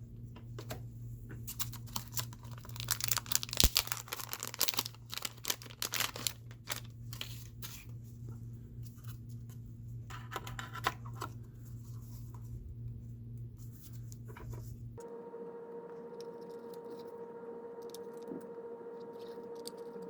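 Hands handling hardware and packaging: rustling, crinkling and tearing sounds with many sharp clicks over a steady low hum. About three-quarters of the way through, the background cuts to a different steady hum.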